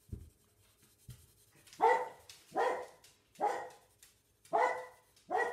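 Pet dog barking five times, short barks a little under a second apart. Two low thumps come before the first bark.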